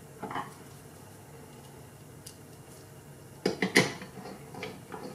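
Handling noise of a screwdriver and the bulb's heat-sink assembly on a wooden workbench. There is a soft knock near the start, two sharp clicks about three and a half seconds in, and lighter clicks near the end.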